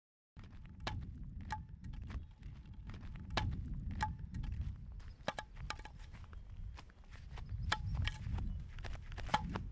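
Footsteps of a person in sandals walking on a stony dirt road: sharp crunching steps at an uneven pace, over a low steady rumble.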